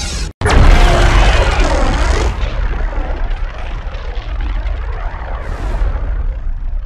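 A loud jet-like rushing sound effect from a film soundtrack: it starts suddenly just under half a second in with a short falling sweep, then runs on as a dense roar that slowly dies down, with a short hiss near the end.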